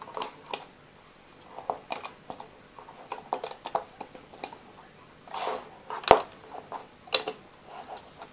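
Fingers handling rubber bands on a plastic Rainbow Loom: scattered small clicks and ticks from the bands and plastic pegs, with a sharper click about six seconds in and another about a second later.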